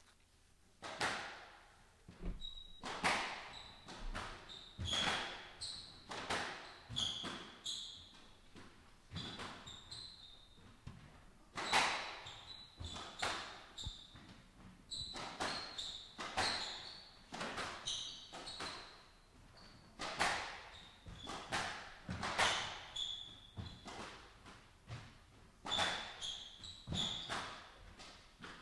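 Squash rally: the ball cracks off the rackets and the court walls about once a second, each hit echoing in the court, while the players' shoes squeak on the hardwood floor.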